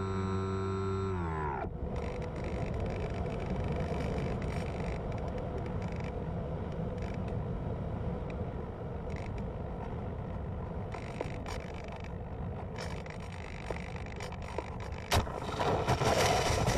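The RC plane's electric motor and propeller whining steadily, heard from the onboard camera, dip briefly and cut off about a second and a half in. Wind then rushes over the airframe as it glides down with the power off. Near the end a sharp knock and a louder scraping rush come as the plane touches down and slides through the grass.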